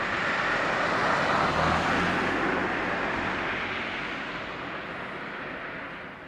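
A vehicle passing: a rushing noise that swells over the first couple of seconds and then slowly fades away.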